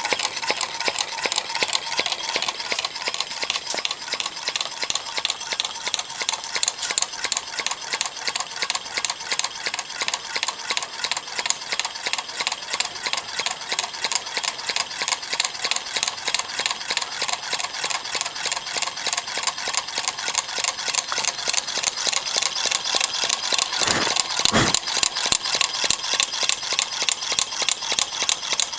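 Homemade tin-can Stirling engine running over tea lights, its wire crank and linkages clicking in a fast, even rhythm. Two deeper knocks come near the end.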